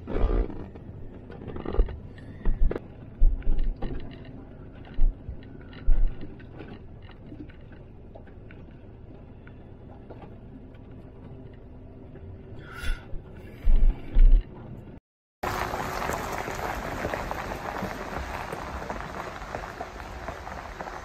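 Low thumps and knocks of a vehicle jolting slowly along a rough gravel lane, over a quiet rumble. After a cut about 15 seconds in, a steady hiss of rain.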